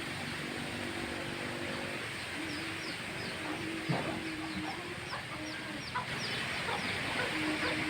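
Chickens clucking, with a run of short, high, falling chirps at about three a second, over a steady hiss of strong wind. A brief knock comes about four seconds in and another near six seconds.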